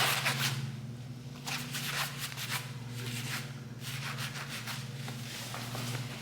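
Fabric stroller bag being handled: its material rustles and rubs in irregular strokes as it is turned and opened by hand, over a faint steady low hum.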